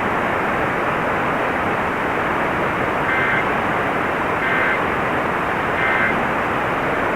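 Emergency Alert System end-of-message data signal: three short identical two-tone digital chirps about a second and a half apart, heard over a steady hiss of radio static.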